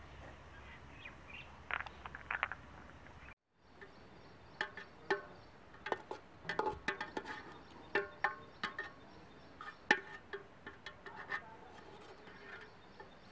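Metal ladle knocking and scraping against a metal cooking pot as cow colostrum is stirred: irregular sharp clinks, each with a short metallic ring, coming thickly after the first few seconds.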